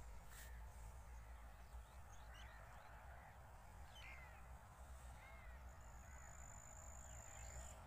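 Near silence: faint open-air ambience, with a low rumble of wind on the microphone and birds calling faintly and intermittently. A thin, steady high whine sounds for about two seconds near the end.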